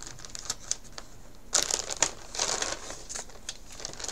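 Clear plastic bag crinkling and rustling as it is pulled open and a hand reaches inside, with short sharp crackles and louder rustling from about one and a half to two and a half seconds in.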